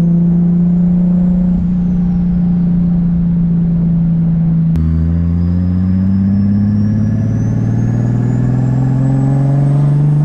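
Turbocharged 1.5JZ straight-six engine in a Lexus IS300 pulling at a steady engine speed. After a cut about five seconds in, its pitch climbs slowly as the car accelerates, with a thin high whine rising above it.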